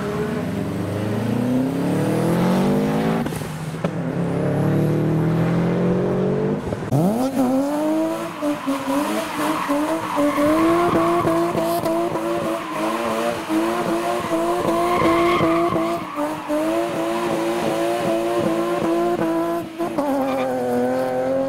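A modified car's engine revving hard. The revs climb in the first few seconds, then about seven seconds in they shoot up and are held high with a wavering pitch for around ten seconds, along with tyre squeal. Near the end the revs dip briefly and climb again.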